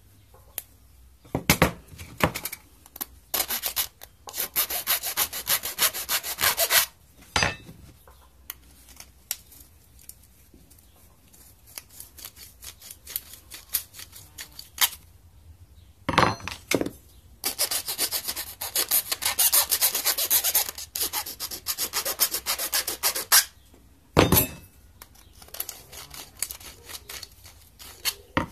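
Round file rasping against the edge of a drilled hole in a small metal can, deburring it: two long runs of quick rasping strokes with shorter bouts between, and a few sharp knocks.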